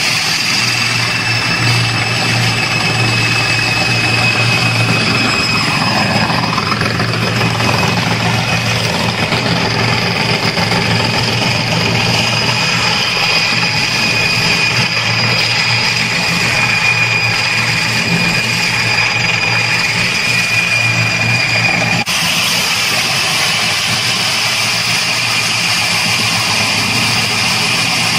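Electric granite and marble floor grinding machine running steadily with its abrasive stones grinding a concrete floor. A motor hum runs under a high, steady whine and a grinding hiss.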